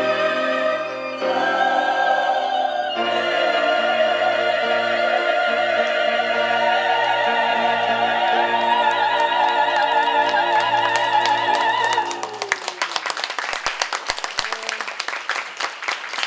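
Choir with orchestra singing the closing phrases of a choral anthem, with vibrato in the voices, ending on a long held chord that stops about twelve seconds in, followed by applause.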